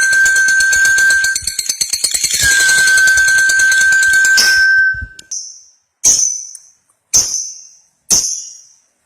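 Lovebird giving its long, rapid chattering trill ('ngekek panjang') twice, the second trill longer, then a few sharp, high single chirps about a second apart.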